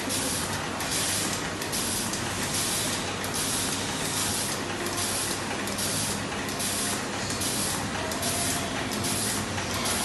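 Dual-transmission chain welding machine running: a steady mechanical hum under a hiss that pulses in an even rhythm.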